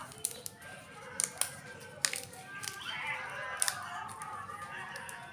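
Fresh banana leaf crackling and rustling as it is folded into a cone and wrapped around a ball of dough, with a handful of sharp, crisp crackles.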